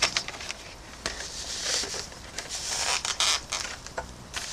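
Handling noise of a Warrior T2 lacrosse helmet being pulled on and strapped: scraping and rustling of the shell and padding against hair, with scattered small clicks and knocks as the chin strap is fastened.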